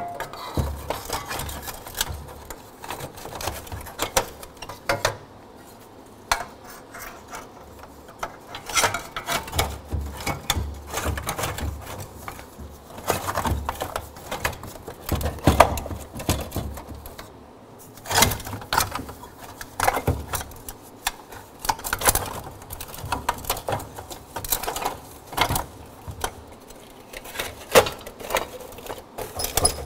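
Thin sheet-metal exhaust heat shields being handled, bent and fitted onto an exhaust manifold and catalytic converter assembly: irregular metallic rattling and clinking, with dull knocks now and then.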